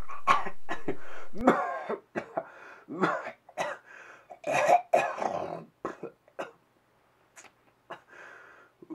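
A man's coughing fit: a string of coughs and throat clearing in irregular bursts, growing fainter and more spaced out, with a short pause about seven seconds in.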